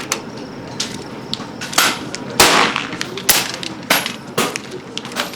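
Air rifles firing on a shooting line: a string of about ten sharp cracks at irregular intervals, some followed by a short ring, the loudest about halfway through.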